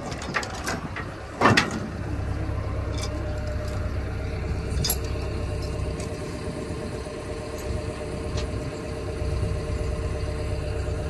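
Excavator's diesel engine running steadily, with a loud sharp clank about a second and a half in and a lighter one near five seconds.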